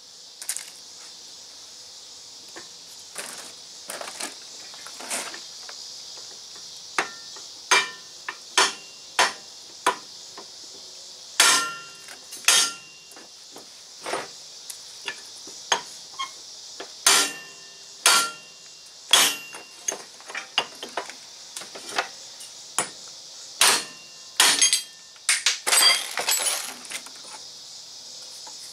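Steel hammer striking a driveshaft's U-joint yoke held in a bench vise, smacked hard to drive a U-joint bearing cap out of the yoke. Many sharp metal-on-metal blows at uneven spacing, each with a short ring, bunched into a quick run of strikes near the end.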